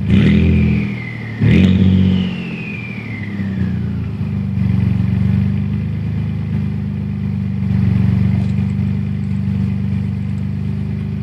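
Ford F-150 EcoBoost twin-turbo V6 through a 4-inch Solo Performance Mach 46 exhaust, its J-pipe set to the loudest setting, blipped twice in quick succession. Each rev is followed by a falling turbo whistle. It then settles into a steady idle.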